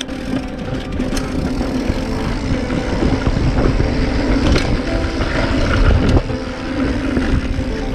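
Wind rushing over a chest-mounted action camera and mountain-bike tyres rolling on a dry dirt trail at downhill speed, with a few sharp knocks from the bike going over bumps.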